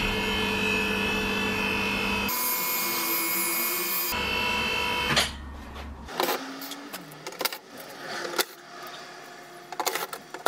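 Electric hydraulic pump motor of a portable scissor car lift running steadily for about five seconds as it raises the car, then stopping. After that come scattered light clicks and knocks from hand work under the car.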